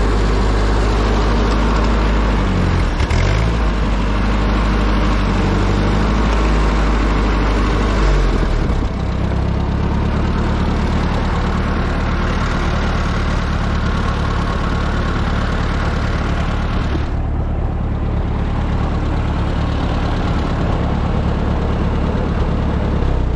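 Ford 8N tractor's four-cylinder gasoline engine running steadily while pulling a V-plow through the soil to cut a furrow. Its note dips briefly about three seconds in, then settles to a lower, steadier pitch about nine seconds in.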